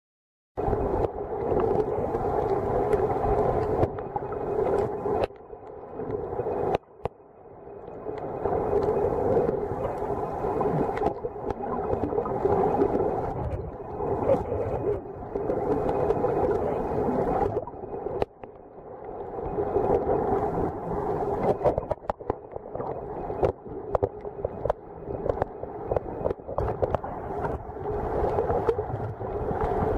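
Muffled water noise picked up by a camera held underwater in shallow water: a steady, droning rush with faint clicks, starting about half a second in and dropping away briefly twice.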